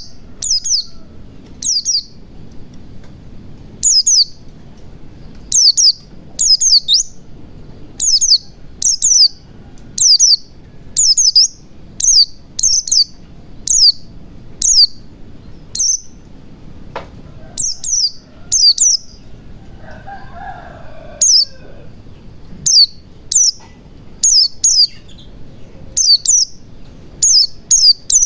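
Pleci (white-eye) song: a long run of short, high, thin chirps, often in quick pairs, about one to two a second.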